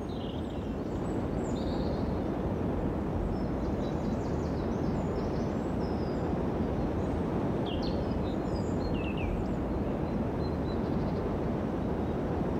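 Steady outdoor ambience, a constant low rush, with faint bird chirps now and then, most clearly about a second in and around eight to nine seconds in.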